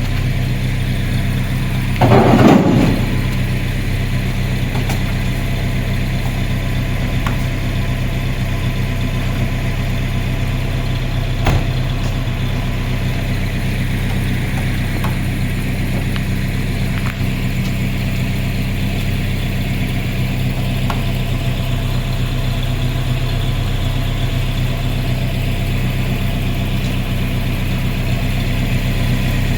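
A vehicle engine idling steadily, with a brief louder clatter about two seconds in.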